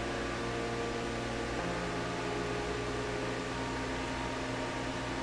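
Steady hum and hiss of background noise, like a fan or room tone, with faint held tones that shift in pitch every second or two.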